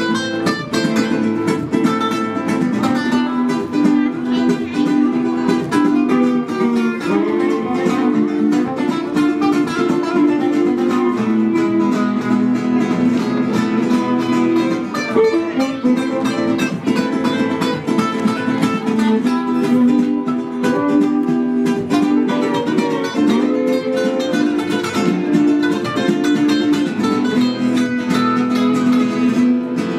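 Acoustic guitar music, a lively tune of quick plucked notes played continuously.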